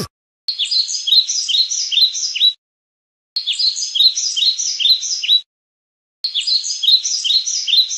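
Bird chirping: a two-second run of quick high chirps, about three a second, heard three times over with short silent gaps. The runs look identical, like a looped sound effect.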